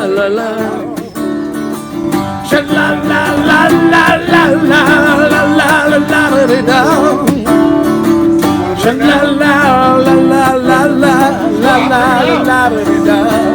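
Background music: a song with a singing voice over plucked acoustic guitar.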